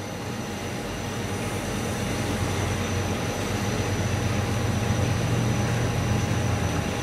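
SB7 spirit box sweeping through radio frequencies: a steady hiss of static over a low hum, slowly getting louder.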